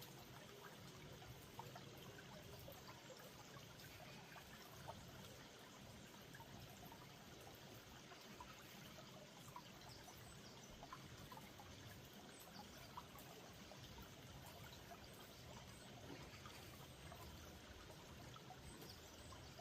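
Faint, steady trickling of a small valley stream.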